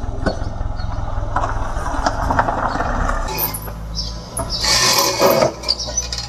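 A car engine running steadily with a low rumble, giving way about four seconds in to street noise, with a brief loud rush of noise around five seconds.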